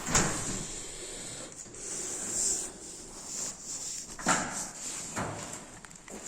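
Hands handling the plastic housing and mounting bracket of a motion detector: rubbing and scraping, with a sharp knock near the start and two more about a second apart near the end.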